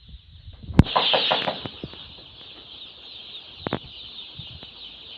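A shed full of young chicks peeping, a dense high chatter that never stops. There is a sharp knock about a second in and a couple of clicks near the middle.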